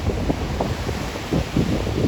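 Wind buffeting the microphone in uneven gusts over the wash of rough storm surf breaking on the shore.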